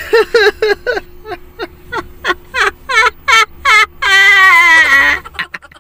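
A man's high-pitched giggling laughter: a quick run of short bursts, about four a second, ending in one long held, wavering note near the end.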